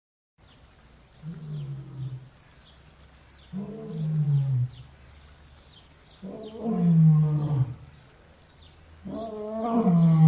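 Four deep, drawn-out calls from a large animal, each about a second long and falling in pitch, the later ones louder. Faint short high chirps repeat behind them.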